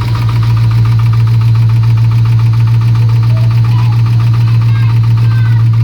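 Chevrolet Camaro's LS1 5.7-litre V8 running steadily with a fast, even knock in time with the engine, the engine knock it is being recorded for.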